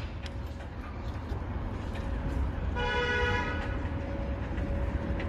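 A single short horn toot about three seconds in, over a steady low rumble of city traffic.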